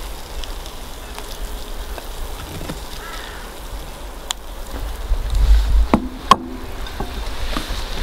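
Serving spatula scraping the food and knocking against a metal baking tray and plates, with a few sharp clacks near the end, the loudest just over six seconds in, over a low rumble.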